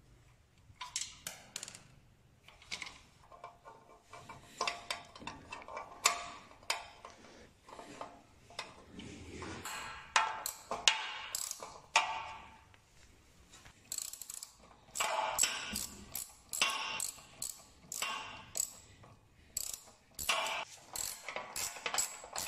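Hand ratchet wrench clicking in irregular bursts as nuts and bolts on a moped are tightened, with quicker runs of clicks in the second half and the odd clink of the tool on metal.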